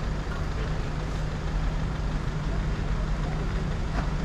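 Small box truck's engine idling, a steady low hum.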